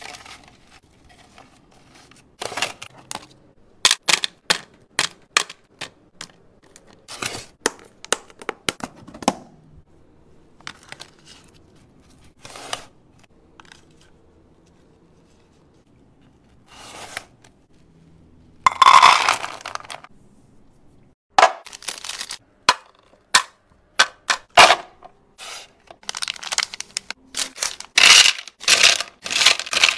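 Candy being unwrapped and laid into a plastic divided tray: cellophane packaging crinkling and tearing, and small candies clicking and clattering onto the plastic. The sounds come in short, sharp bursts, with a quiet pause near the middle and a longer rustle a little past it.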